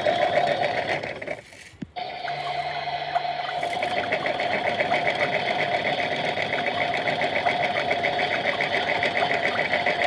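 Toy washing machine running its wash programme: a small electric motor whirring steadily with a fast, even ticking. The sound drops out briefly just over a second in, then carries on.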